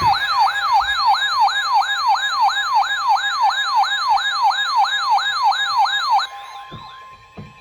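Electronic emergency alert tone: a rapid siren-like sweep rising and falling about three to four times a second over a steady tone. It cuts off about six seconds in, and a single steady tone lingers briefly after it.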